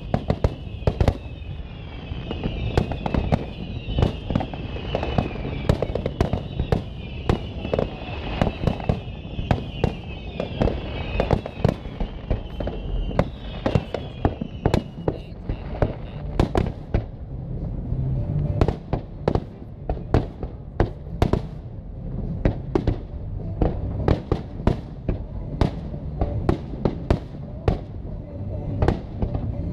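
Aerial fireworks display: a rapid, irregular run of shell bursts and crackles, with deeper booms underneath. A high wavering whistle runs through the first half and stops about fifteen seconds in.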